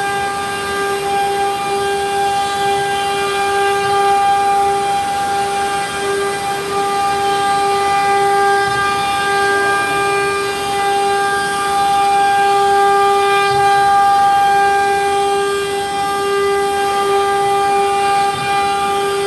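CNC router spindle running with a steady high whine while carving a wooden door panel, with the hiss of the cutter in the wood beneath it.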